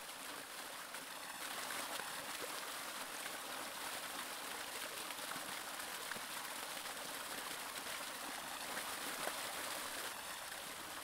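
Steady rush of running water from a small stream falling over rock ledges.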